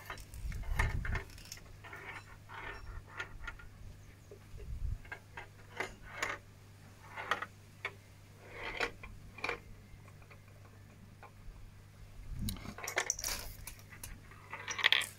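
A Perplexus Rebel 3D maze ball being turned in the hands: the small ball inside clicks and rattles irregularly along the plastic track, with occasional dull thumps as the sphere is handled, and a quicker run of clicks near the end.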